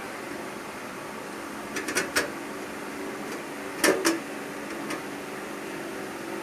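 Screw and screwdriver clicking and knocking against the metal drive cage of a PC case as a hard-disk screw is put in: two short clusters of sharp clicks, about two seconds apart, over a steady background hum.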